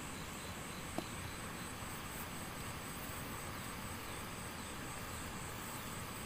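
Steady outdoor hiss with a faint, evenly pulsing high-pitched drone, and one sharp click about a second in.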